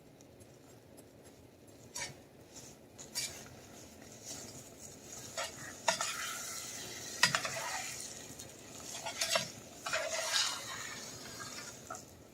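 A spoon stirring brown and white sugar into melted butter in a saucepan, scraping around the pan, with several sharp clinks of the spoon against the pan. It starts about two seconds in.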